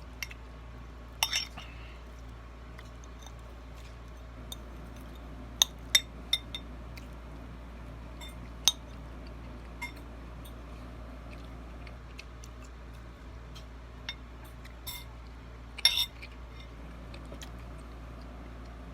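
Cutlery clinking against a bowl while eating: scattered sharp taps and clicks, three in quick succession about six seconds in and another near the end, over a steady low hum.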